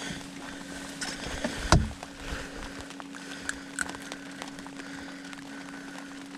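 A boat motor running with a steady, even hum, with a single sharp knock about two seconds in and a few faint clicks.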